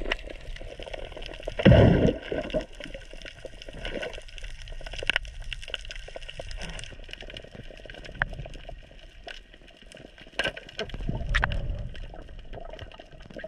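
Underwater water noise against a diving camera: gurgling and sloshing with scattered sharp clicks, and a louder rush of water about two seconds in and again near the end.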